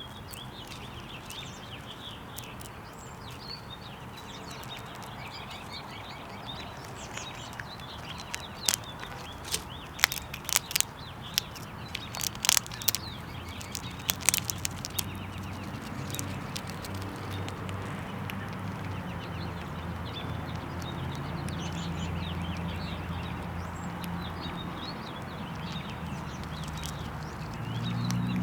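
Small birds chirping outdoors, with a quick run of sharp clicks and taps in the middle. A low steady hum builds up in the second half.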